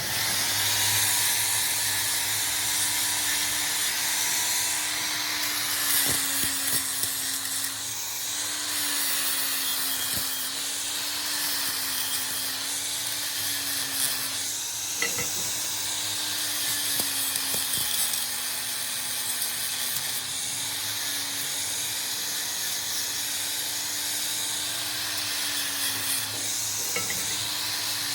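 A machine tool running steadily in a workshop: a motor hum that wavers slightly in pitch under a constant hiss, with a few light clicks.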